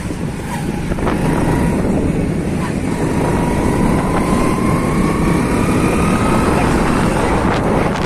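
Vehicle on the move: steady engine and road noise with wind rushing over the microphone, and a faint whine rising in pitch from about three seconds in until near the end.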